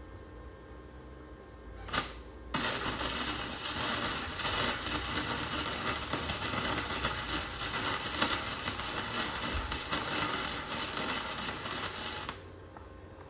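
A single click, then an electric welding arc crackling steadily for about ten seconds, starting and stopping abruptly, as a nut is welded onto the end of a shock absorber rod.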